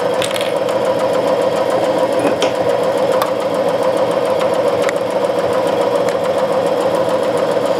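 Domestic sewing machine running at a steady speed, stitching a straight-stitch seam through coat fabric.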